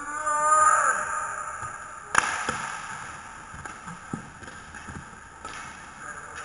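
A player's drawn-out shout, rising then falling in pitch, then about two seconds in the sharp crack of a hockey stick and puck that echoes round the big rink, followed by a few lighter stick and puck knocks over the rumble of inline skate wheels.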